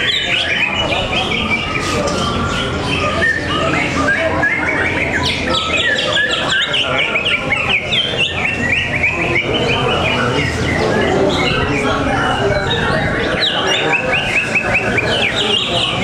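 Many caged songbirds singing at once, a dense, unbroken chorus of rapid chirps and trills from a songbird-singing contest.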